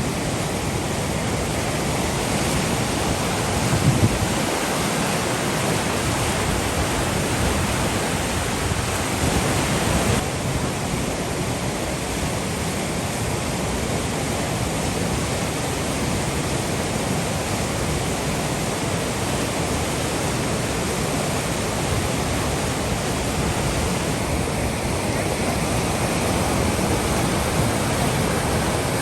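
Steady rush of whitewater river rapids, a continuous loud wash of water.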